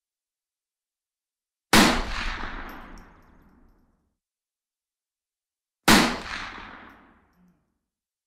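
Two rifle shots about four seconds apart, each a sharp crack followed by a long echoing tail that dies away over about two seconds.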